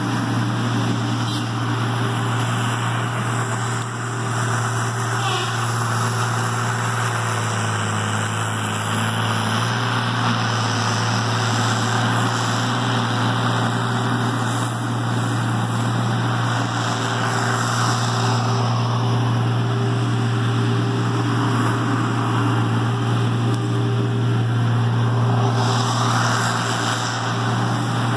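Tigercat 720E wheeled feller buncher running close by, its diesel engine holding a steady, loud drone as the machine moves, with a brief dip about four seconds in.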